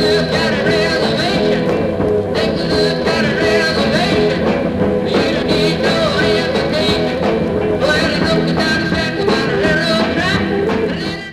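Rock-style music with a steady beat, stopping right at the end.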